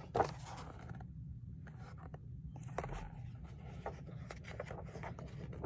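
Pages of a hardcover picture book being riffled and turned by hand: faint paper rustling and light flicks, with a brief louder flutter of pages near the start.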